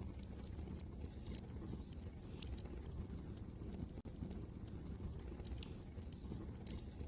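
Wood fire crackling in a fireplace, with irregular sharp pops and snaps, over a steady low rumble of wind.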